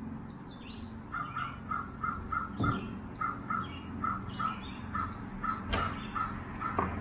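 An animal call, one short note repeated evenly about three times a second, with higher bird chirps scattered over it. A few sharp knocks come from handling the saw.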